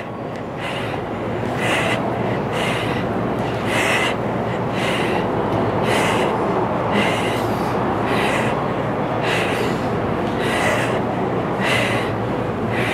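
Sharp exhalations, about one a second, from a person working through knee-grab sit-ups, over a steady rushing background noise.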